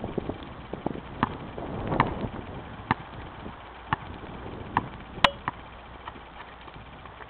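Basketball bounced on pavement: about seven ringing bounces, roughly one a second, stopping about five and a half seconds in, with the second-to-last bounce the sharpest.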